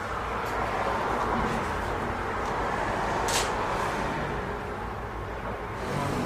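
Steady background noise with no clear pitched source, and one short sharp click about three seconds in.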